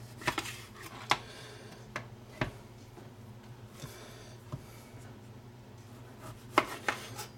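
Knife slicing the dry, hard bark off a dry-aged New York strip steak on a plastic cutting board: faint scraping of the blade through the crust, with several sharp clicks as the blade and meat knock against the board.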